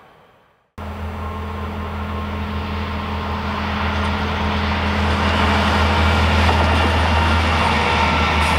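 SBB Tm 234 diesel shunting tractor approaching and passing with a towed, dead Am 841 locomotive: a steady low diesel engine drone with rail and wheel noise, growing louder. It cuts in about a second in, after a brief near silence.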